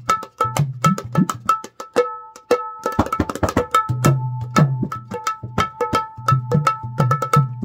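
Mumbai dholki (naal), a two-headed barrel drum with metal tuning bolts, played by hand in a fast, busy rhythm: crisp ringing strokes on the small treble head over deep bass strokes, some of which rise in pitch as they sound.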